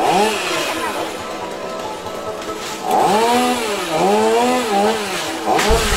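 Chainsaw cutting into the crown of a coconut palm, its engine revving up and down in repeated short rises and falls. A low rumble comes in near the end.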